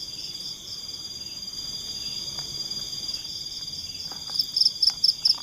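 Night-time forest insect chorus: a steady, high, shrill trill, with a pulsing chirp of about five beats a second joining near the end. A few faint clicks come through underneath.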